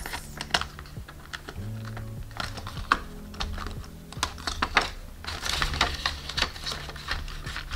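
Paper banknotes crinkling and rustling as they are handled and slid into a cash binder's plastic envelope pocket, a dense run of small irregular clicks and crackles.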